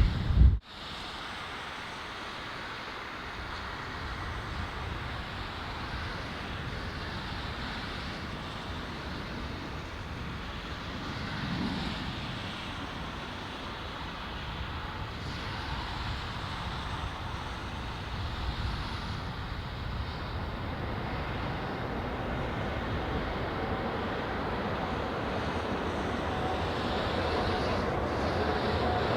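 A loud noise cuts off abruptly about half a second in. Then comes a steady rush of wind and distant jet noise that slowly grows louder as a Boeing 777-300ER on approach comes closer, with a faint engine whine rising near the end.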